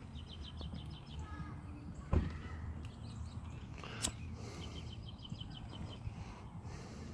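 A disposable lighter being struck once with a sharp click about four seconds in, to light a firework fuse; a dull thump comes about two seconds in. Outdoor chirping in short rapid trains runs underneath.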